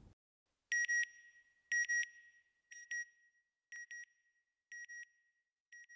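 Electronic sound logo of the NASA Goddard end card: a high double beep about once a second, six times, each fainter than the last.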